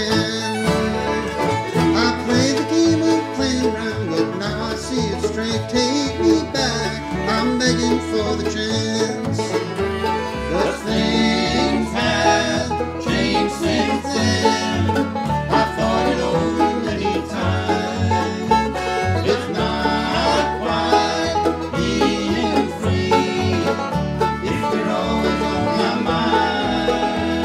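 Bluegrass band playing: banjo, fiddle, mandolin, acoustic guitar and upright bass, with the banjo up front over a steady bass pulse.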